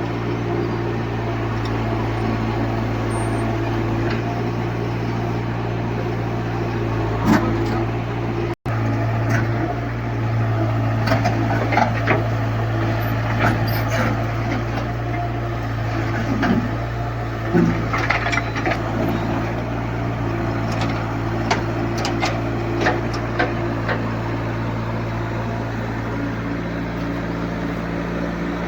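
Backhoe loader's diesel engine running steadily at a low, even pitch, with scattered knocks and clatters from the loading work.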